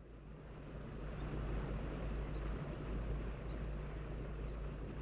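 Boat motor running steadily as the boat moves along the canal, a low rumble mixed with wind on the microphone.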